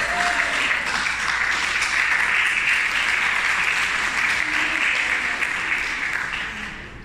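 A roomful of guests applauding, the clapping dying away near the end.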